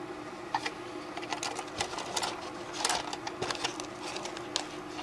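Irregular light clicks and taps of small plastic parts and components being handled, over a steady low hum.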